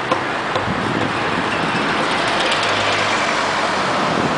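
Steady road traffic noise, engines and tyres of passing cars, growing slightly louder toward the end.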